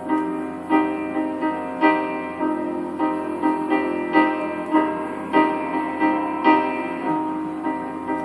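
Piano playing repeated chords in a steady rhythm, about two strikes a second, with no singing yet: the instrumental opening of a song.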